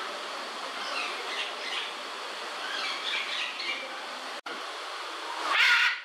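Small birds chirping over a steady hiss, then near the end a short, loud, harsh macaw squawk.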